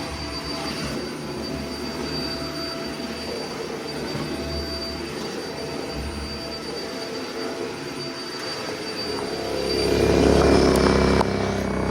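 Dyson vacuum cleaner running as it is pushed over carpet: a steady motor whine and suction noise, growing louder for about a second near the end.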